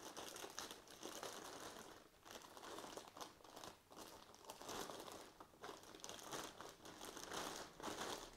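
Clear plastic bag crinkling as it is handled and pulled off a robot vacuum, in faint rustles that come and go.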